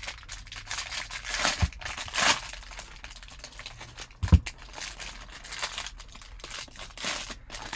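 Foil wrapper of a baseball trading-card pack crinkling as it is torn open and pulled apart by hand, in irregular bursts, with one dull thump about four seconds in.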